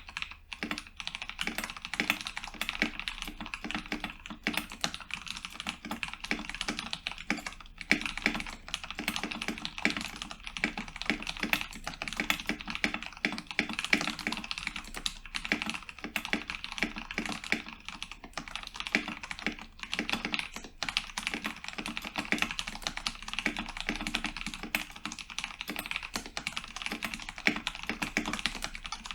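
Continuous typing on a modded Cooler Master MasterKeys Pro S mechanical keyboard with tactile Cherry MX Brown switches: a dense, steady stream of keystroke clacks, several per second.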